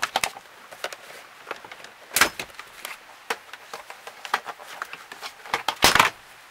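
Irregular plastic clicks and knocks as a Honda CR-V's lower dash cover panel is pulled free and handled, with louder knocks about two seconds in and again near six seconds.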